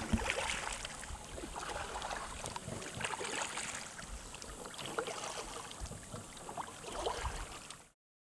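Small choppy waves lapping and splashing against a kayak hull at water level, with wind rumbling on the microphone. The sound cuts off suddenly near the end.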